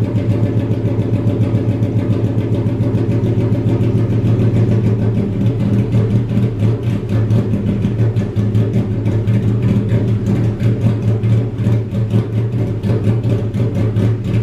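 Honda Civic hatchback's four-cylinder engine running steadily through a homemade straight-pipe exhaust with no muffler, loud and even with a slight wavering of level in the second half.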